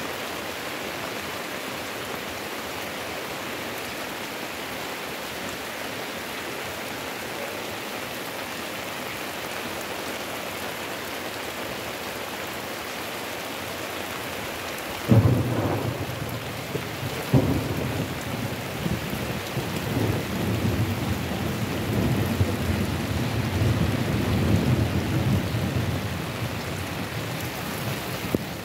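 Heavy rain pouring down steadily. About halfway through, a sudden sharp thunderclap is followed by a second crack and a long low rumble of thunder that swells and then fades out over about ten seconds.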